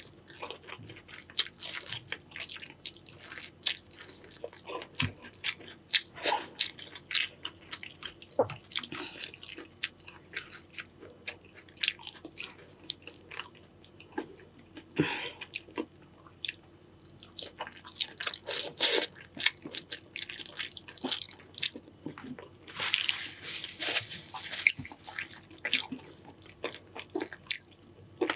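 A person eating seafood boil close to the microphone: irregular chewing and crunching bites, one after another, with a louder noisy stretch near the end.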